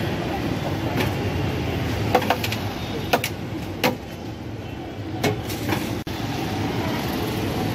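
Steady street traffic noise, with a scattering of sharp clicks and knocks, about eight of them between about one and six seconds in.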